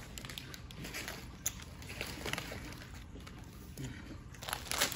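A Doritos chip bag crinkling in hand as it is shaken and tipped, with scattered light crackles and a few louder crinkles near the end.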